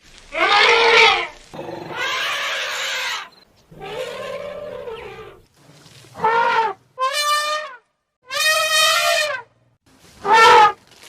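A run of about seven loud animal calls with short gaps, each lasting half a second to a second and a half, most with a clear bending pitch and a rich, brassy tone, the second one noisier and rougher: sound-effect calls of an Ice Age beast.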